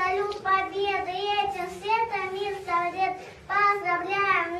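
A child singing in a high voice, holding long wavering notes, with a short break for breath about three and a half seconds in.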